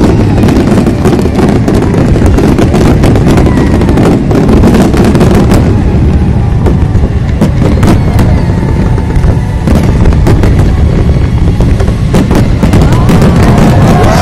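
A loud, dense barrage of aerial fireworks: rapid cracks and bangs over a continuous booming rumble.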